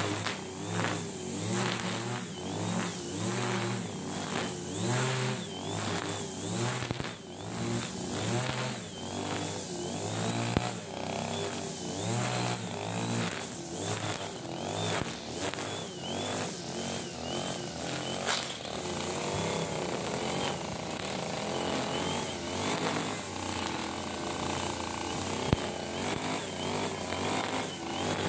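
Backpack brush cutter's petrol engine running under load while cutting grass, its note rising and falling about once a second, with a high whine from the cutting head. After about 18 seconds it runs more steadily.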